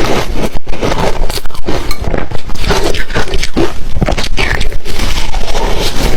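Close-up chewing of crunchy ice, a dense run of rapid, irregular crunches as the ice is bitten and ground between the teeth.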